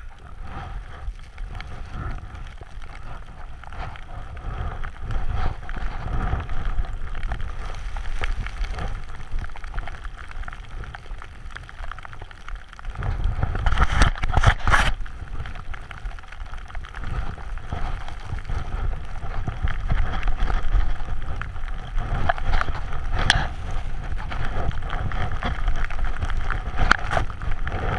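Snowboard running through deep powder, with wind buffeting the camera's microphone: a steady low rush and rumble. About halfway through it grows louder for a couple of seconds, with several sharp knocks.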